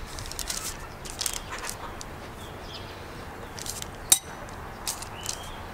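Soft rustling of baking paper and light taps as filled dough rolls are set into an aluminium pan, with one sharp clink about four seconds in.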